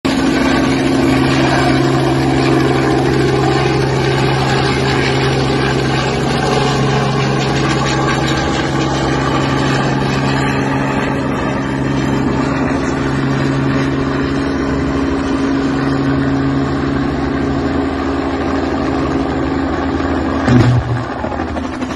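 Helicopter hovering low on its landing approach, its rotors and engine making a steady drone. About twenty seconds in there is a sudden loud crack as it strikes a power line, and the engine sound changes right after.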